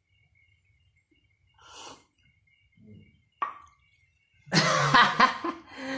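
A person breathing, a sharp click, then a loud cough lasting about a second near the end.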